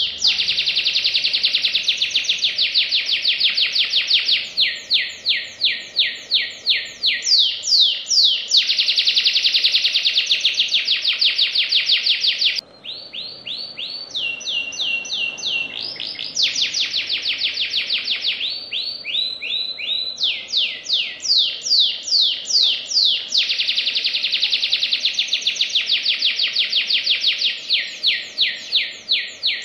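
Domestic canary singing without a break: long, rapid trills of fast repeated notes, phrase after phrase, briefly softer near the middle before the fast trills resume.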